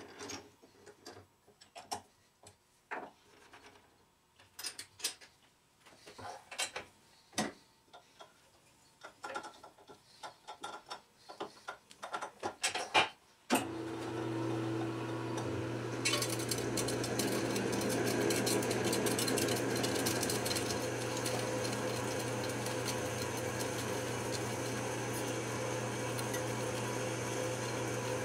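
Clicks and knocks of a large twist drill being fitted and tightened in a lathe's tailstock drill chuck. About 13 seconds in, the lathe starts with a steady low hum. From about 16 seconds the drill cuts into the spinning workpiece with a steady drilling noise.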